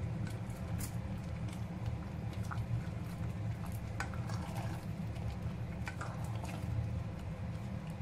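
Thick coconut-milk broth with shrimp and squash simmering in a stainless steel pot, with small bubbling pops and now and then a spatula tapping and scraping in the pot, over a steady low hum. The broth has thickened and the dish is nearly cooked.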